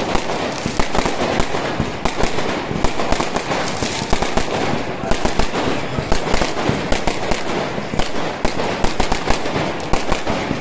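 Fireworks going off overhead in a dense, continuous barrage of sharp bangs and crackles, many reports a second with no let-up.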